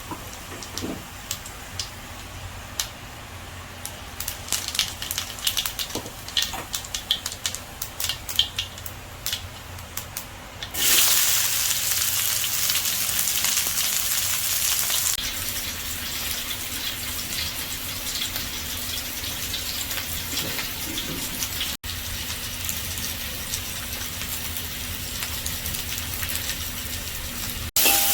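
Hot oil in a pan crackling with scattered pops, then a sudden loud sizzle about eleven seconds in as food goes into the pan. The sizzle settles into steady frying.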